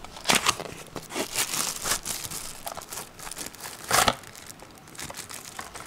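Cardboard box being opened and a clear plastic bag crinkling as a plastic case is pulled out and handled: irregular rustles and crackles, the loudest about four seconds in.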